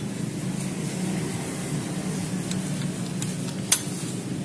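A steady low mechanical hum with a few sharp metallic clicks, the loudest about three-quarters of the way through.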